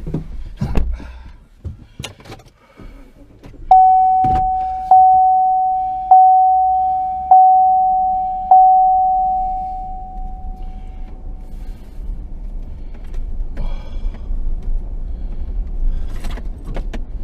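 A vehicle's warning chime dinging five times, about one ding every 1.2 seconds, each a single steady tone that fades, after a few clicks and knocks of keys and a door. Then the vehicle runs with a steady low rumble.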